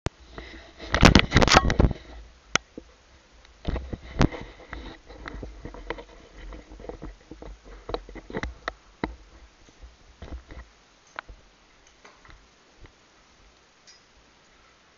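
Rustling and knocking close to the microphone: a loud scuffle about a second in, then scattered sharp clicks and knocks that grow fewer and fainter toward the end.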